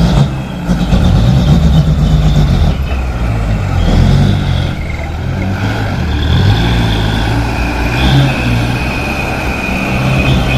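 Dump truck's diesel engine running, its revs rising and falling, with a sharp bang at the very start.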